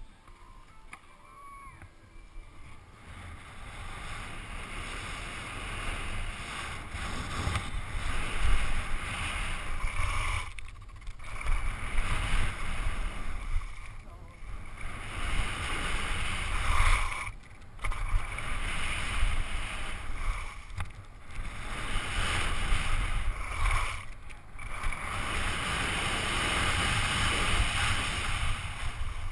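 Skis scraping and hissing over packed snow while wind buffets the action camera's microphone with a low rumble; the rush swells and fades and drops out briefly four times.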